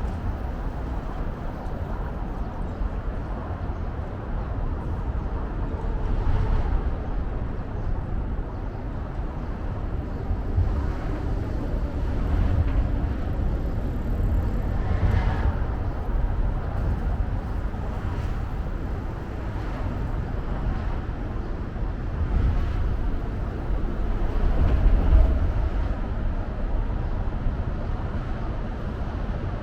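Outdoor city ambience: a continuous hum of road traffic, heaviest in the low rumble, swelling a little several times.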